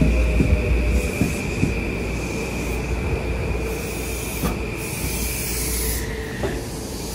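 Metro-North M8 electric multiple-unit commuter train rolling along a station platform, slowing, with a steady high-pitched squeal over the running rumble; the squeal drops in pitch about six seconds in. Patches of hiss come and go.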